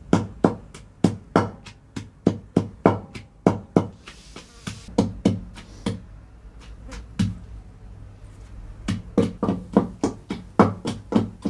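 A long wooden pestle thuds rhythmically into a kundi-sota mortar, about two to three strikes a second, as onion, garlic and green chilli are pounded with salt into raw masala. The pounding slows to a few scattered strikes around the middle, then picks up faster near the end.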